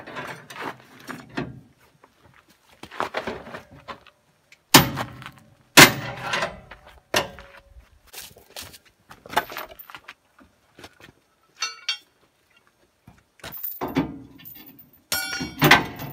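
Steel weight-distribution hitch spring bars and their chains being handled: a series of irregular hard metal clanks, the loudest two about five and six seconds in, with chain links rattling near the end.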